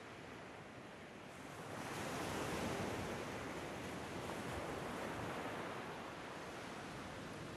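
Ocean waves washing in a soft, steady rush that swells about two seconds in and eases off again near the end.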